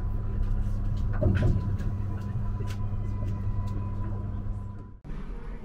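Steady low hum inside a Eurostar high-speed train carriage, with a faint high whine, a few light clicks and a brief louder rumble a little over a second in. Near the end the hum cuts off abruptly and a slightly different cabin hum takes over.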